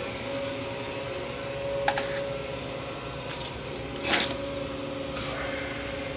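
A steady hum of shop machinery with one held tone, overlaid by a few light clicks and knocks as a length of steel rebar is handled and laid against a wooden folding rule.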